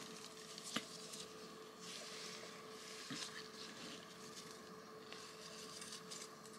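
Quiet room with a faint steady hum and light rustling of cloth and paper as a newborn is handled, with one sharp click just under a second in.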